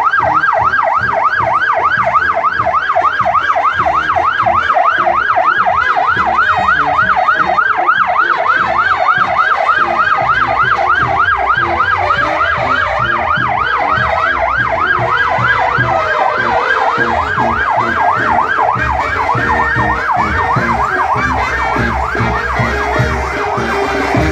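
Police pickup's siren on a fast yelp, sweeping up and down about three to four times a second. It grows weaker in the last few seconds.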